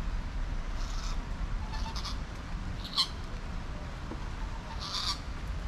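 An animal calling: four short high calls, roughly a second apart with a longer gap before the last, over a steady low rumble.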